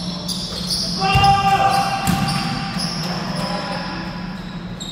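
Basketball game in play: a ball bouncing on a tiled indoor court, a few sharp knocks about one and two seconds in, with short high squeaks of sneakers and players' voices calling out.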